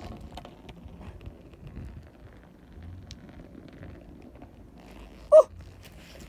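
A loose motorcycle tyre rolling on tarmac, a faint low rumble with a few light ticks. About five seconds in, a short pitched call is the loudest sound.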